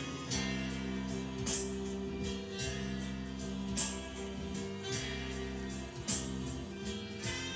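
Instrumental background music: held chords with three bright percussive accents a little over two seconds apart.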